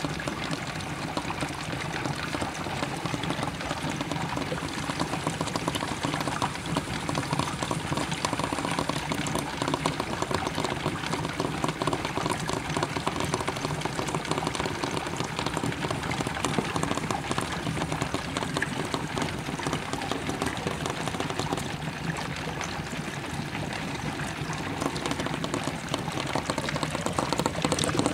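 Steady, vigorous bubbling and fizzing of water as a 354-plate HHO (hydrogen-oxygen) electrolysis generator puts out gas at high output; it gets louder near the end.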